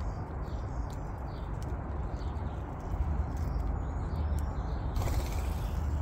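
European starlings giving faint chirps and whistles while feeding, over a steady low rumble.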